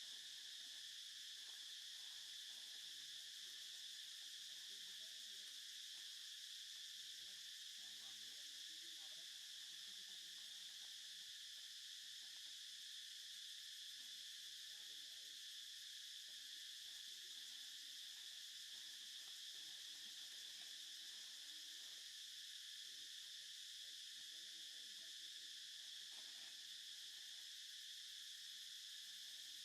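Faint, steady insect chorus: a constant high-pitched drone that never breaks.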